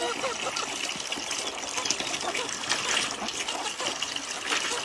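Water running steadily, a constant gushing hiss.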